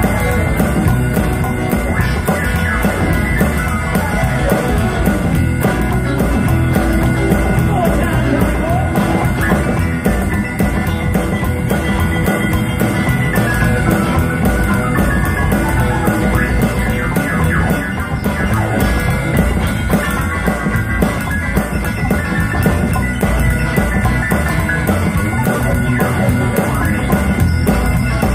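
Live rock and roll band playing through a PA: electric guitar, upright bass, drum kit and keyboard in a steady, continuous groove.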